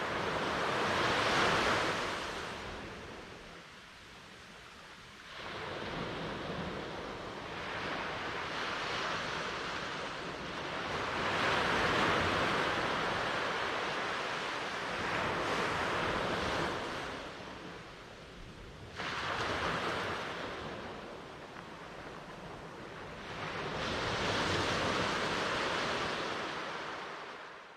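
Ocean surf: waves breaking and washing in, swelling and ebbing every few seconds. The sound fades out at the very end.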